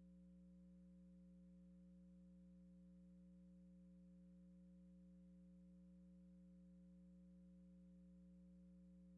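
Near silence with a faint, steady electrical hum of a few low tones that does not change.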